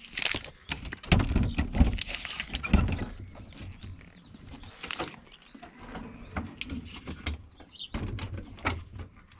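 Metal latch on a wooden shed door clicking and rattling as it is worked open, with heavier knocks and thumps from the wooden door about one to three seconds in.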